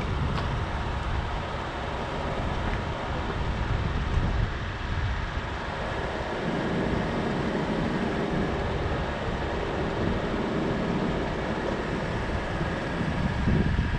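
A car running, a steady low rumble with road or wind noise; the low rumble grows louder about six and a half seconds in.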